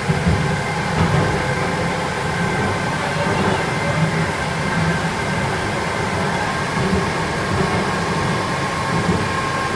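Ganz-Mávag M1 metro railcar running between stations, heard from inside the car: a steady rumble of wheels and running gear with a faint steady whine above it.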